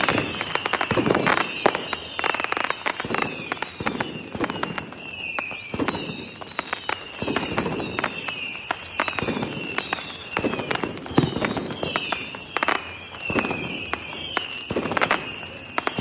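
Fireworks going off in a steady barrage: dense crackling and sharp bangs, with heavier booms every second or two. Short falling whistles repeat all through.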